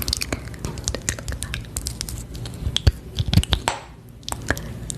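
Close-miked ASMR clicks and soft taps, many in quick irregular succession, with a brief brushing swipe a little before the end.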